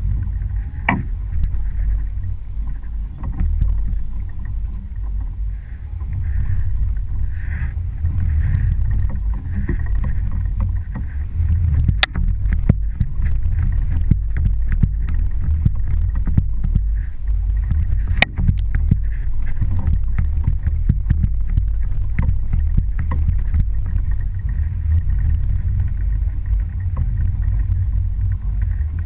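Boston Whaler's motor running steadily as the boat moves over choppy water, a dense low rumble mixed with water and wind noise. Scattered sharp knocks sound over it, the loudest about twelve and eighteen seconds in.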